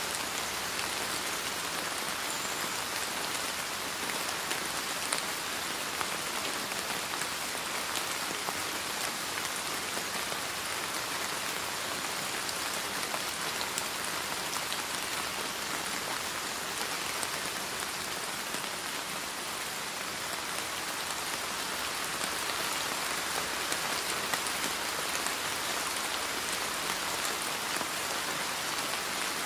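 Steady rainfall: an even hiss of rain with faint, scattered drop ticks.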